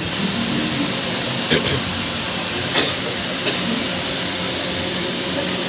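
Steady hiss with a faint low hum inside a moving ropeway cable-car cabin, with a couple of faint clicks.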